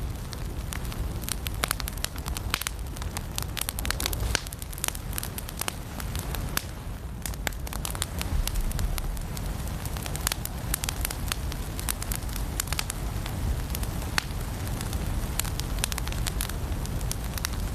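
Firewood burning in a fireplace, crackling with frequent sharp, irregular pops over a steady low rumble of the flames.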